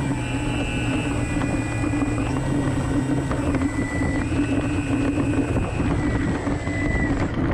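Motor and propeller of a radio-controlled model T-6 Texan running while the model taxis, a steady drone with a whine whose pitch steps up and down twice as the throttle is opened and eased off.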